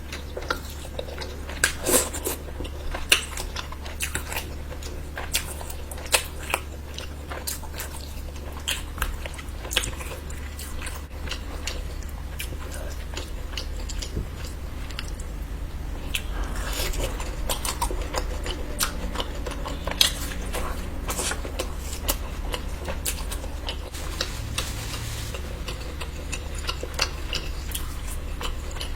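Close-miked eating: irregular wet chewing, biting and mouth smacks as curry and chicken are eaten, over a steady low hum.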